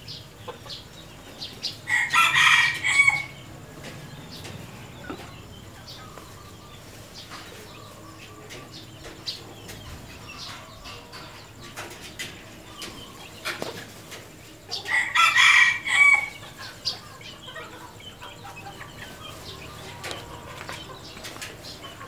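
Red junglefowl rooster crowing twice, each short crow lasting about a second and the two roughly thirteen seconds apart, with soft hen clucks and small ticks in between.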